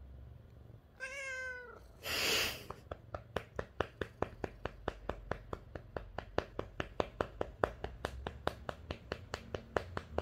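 Lynx point Siamese cat gives one short, slightly falling meow about a second in, complaining that the patting has stopped, followed by a short loud breathy rush of noise. Then a hand starts slapping the cat's rump in a steady rhythm of about four pats a second.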